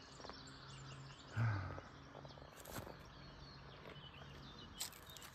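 Quiet early-morning mountain-lake ambience: faint scattered bird chirps over a low hiss, with a brief low hum about a second and a half in and a couple of short clicks later on.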